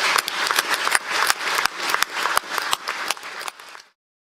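Audience applauding, a dense patter of many hands clapping that thins out near the end and then cuts off abruptly.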